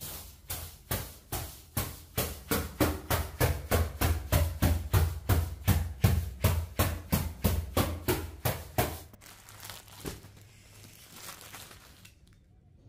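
A wooden stick beating a bare spring mattress to knock the dust out: a steady run of dull whacks, about three a second, that stops about nine seconds in.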